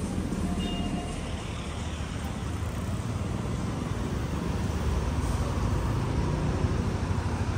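City street traffic passing close by: a van, a motorcycle and cars going past with a steady low engine and tyre rumble that grows a little louder after the middle.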